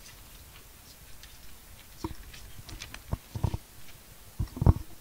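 Irregular low thumps and knocks, starting about two seconds in and loudest near the end.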